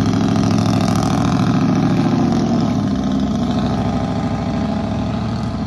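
A loud truck engine running with a fast, even exhaust pulse, easing slightly near the end.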